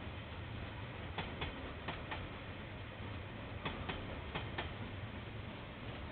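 Train wheels clicking over a rail joint as a slow train rolls past: sharp clicks in pairs, one for each axle of a bogie, the pairs coming two at a time with a longer gap between, over a steady low rumble.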